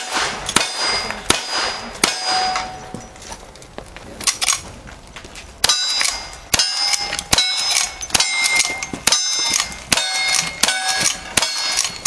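Cowboy action shooting: four revolver shots, then a pause, then a steady string of lever-action rifle shots about one every 0.8 s. Each shot is followed by the short ring of a steel target being hit, each plate ringing at its own pitch.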